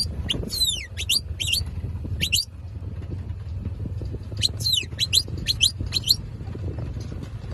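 Logan Brass Turbo two-hole shepherd's whistle blown in two quick runs of sharp, sliding notes, rising and falling, about four seconds apart. These are whistled commands to working sheepdogs.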